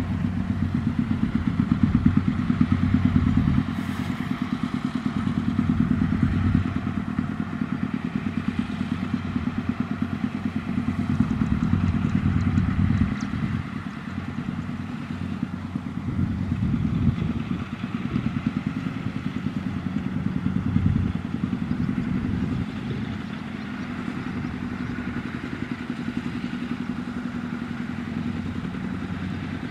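Small single-cylinder diesel engine of a homemade farm truck running with a rapid, even beat while hauling a load of rice sacks, with some clatter from the machine. It eases off to quieter, steady running about three quarters of the way through.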